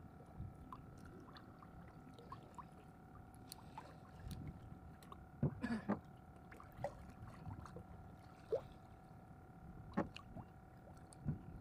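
Faint sound of small waves lapping against a small fishing boat's hull, with a few sharper knocks, over a faint steady hum.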